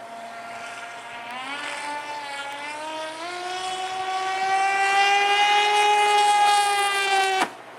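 RC three-point hydroplane racing boat's motor at speed: a steady whine that climbs in pitch and grows louder as the boat accelerates, then cuts off suddenly near the end.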